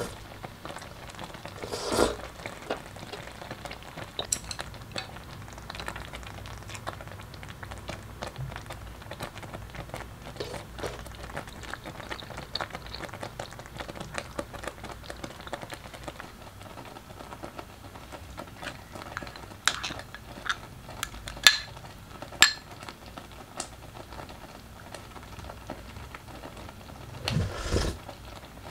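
Thick rice congee boiling in a stainless steel hot pot, a steady stream of small bubbles popping. A few sharper clicks stand out about two seconds in and around twenty seconds, and there is a low thump near the end.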